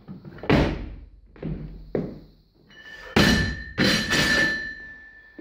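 Heavy thuds of a loaded barbell with bumper plates during a jerk and a drop onto the lifting platform. The loudest thud comes about half a second in, a few lighter ones follow, then another loud landing and bounces about three seconds in. A steady metallic ring from the bar and plates carries on after the landing.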